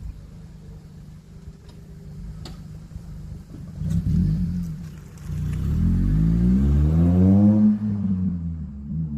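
Honda Civic Type R FN2's K20Z4 2.0-litre four-cylinder running through an Invidia Q300 exhaust and Injen intake: a low, even rumble, then a short rev about four seconds in, followed by a longer rev that climbs for about two seconds and drops back.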